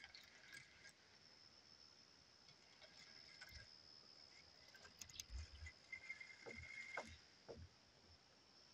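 Near silence: faint outdoor stillness with a thin steady high tone, and a few soft knocks and clicks in the middle.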